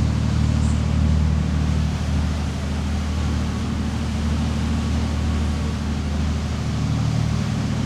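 A motor yacht's inboard diesel engines running steadily under way at low cruising speed: an even low drone with a steady hiss over it.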